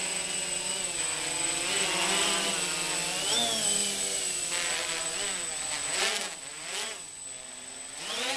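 Mini quadcopter's brushless motors and cut-down 8-inch propellers buzzing in flight. The pitch rises and falls as the throttle changes. It is louder in the first half, then quieter, with the pitch swinging up and down.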